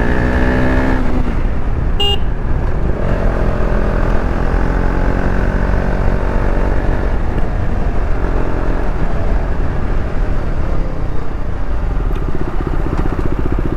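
KTM 390 Duke's single-cylinder engine running as the bike is ridden along a road, with steady road and wind noise. A vehicle horn sounds and stops about a second in, fainter horns come and go later, and there is a brief sharp beep about two seconds in.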